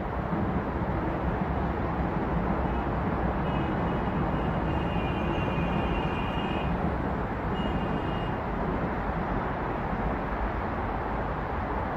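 Steady wash of city traffic on a busy multi-lane road: engines and tyres blending into a continuous noise. A faint high-pitched whine sits on top of it from about three seconds in to about eight seconds in.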